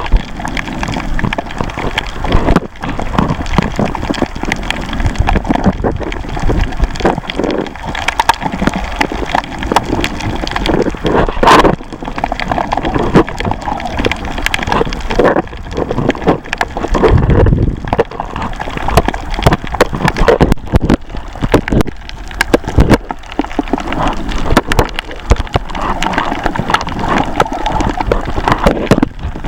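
Underwater reef noise: a dense, continuous crackle of short clicks and pops over a rushing hiss, with a brief low rumble a little past the middle.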